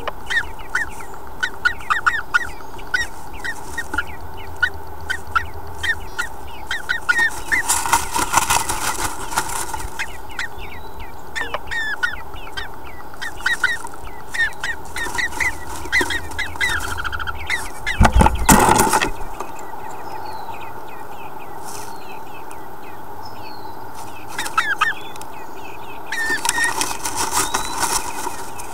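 Bluebird moving about inside a wooden nest box, rustling the twig nest and brushing the walls with its wings, with a loud scuffle about two-thirds of the way in and shorter bouts of rustling earlier and near the end. Short high bird chirps come thick and fast throughout over a steady hiss.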